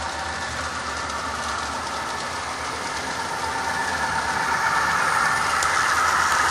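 Model diesel locomotive's engine sound, steady with several held tones, rising in loudness from about four seconds in as the locomotive comes out of the tunnel toward the microphone.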